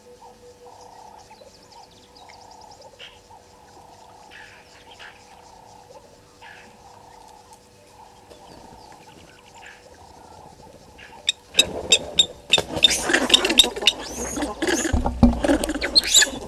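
A vervet monkey handling the camera and microphone: loud close scratching, tapping and knocking that start about two-thirds of the way in and carry on in irregular bursts. Before that, a quiet outdoor background with a few faint short calls.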